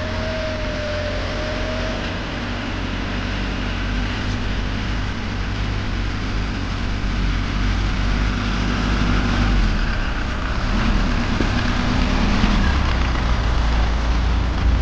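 A vehicle engine running steadily with a low rumble, growing a little louder in the second half. A faint held tone sounds over it for the first couple of seconds.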